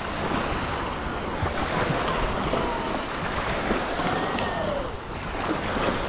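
Beach ambience: waves washing onto the shore and wind buffeting the microphone, as a steady rushing noise.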